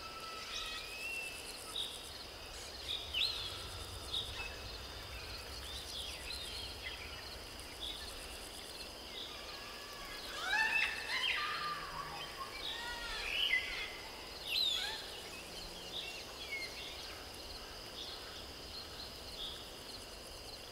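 Outdoor nature ambience: birds chirping in short rising and falling calls, busiest from about ten to fifteen seconds in, over a steady high-pitched insect drone.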